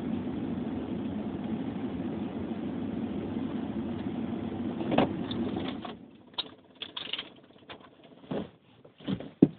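Steady low drone inside a parked car's cabin, with a knock about five seconds in. The drone cuts off abruptly about six seconds in, leaving scattered short clicks and knocks.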